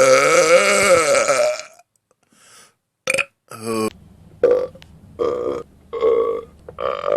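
Human belching: one long, deep, pitched burp that ends about a second and a half in, then, after a short gap, several short burps in quick succession.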